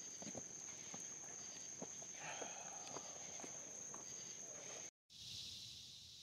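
Wood campfire crackling: scattered sharp pops and snaps over a faint steady high tone. About five seconds in it cuts out briefly and gives way to a faint steady high hiss of woodland ambience.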